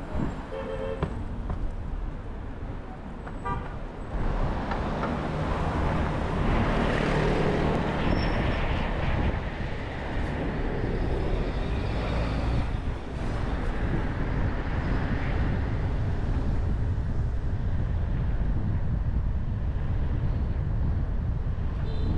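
City road traffic noise from a car driving along: a steady low rumble of tyres and engines, louder for several seconds as vehicles pass. A short car horn toot sounds about half a second in and again at the very end.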